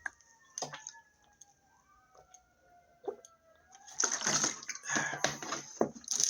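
Liquid sloshing and splashing in a bottle, in several noisy bursts just past the middle.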